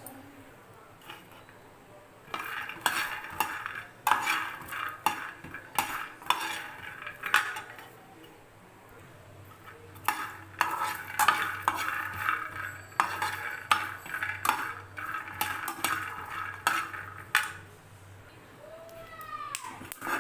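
Peanuts being roasted in a pan and stirred with a steel spoon: spells of rattling and scraping with the spoon clinking on the pan, from about two to seven seconds in and again from about ten to seventeen seconds, with quieter pauses between. The peanuts are nearly roasted and crackling.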